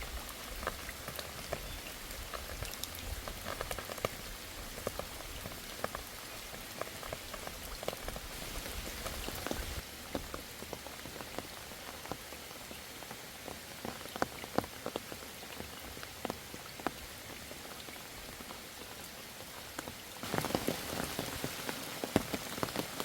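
Steady rain falling, with many separate drops tapping sharply on leaves and surfaces. The rain grows louder about twenty seconds in.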